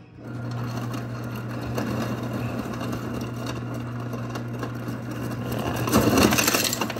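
Samsung RS64R5301B4 side-by-side refrigerator's door ice dispenser running in crushed-ice mode: a steady motor hum with ice being crushed and rattling out of the chute. The crunching grows louder about six seconds in.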